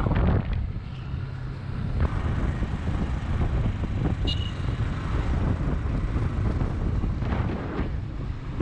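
Wind rushing over the microphone of a moving motorcycle, mixed with its engine and road noise. A brief high chirp sounds about four seconds in.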